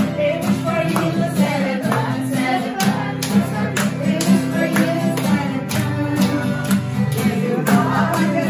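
A group of women singing together to a strummed acoustic guitar, with hand claps keeping the beat.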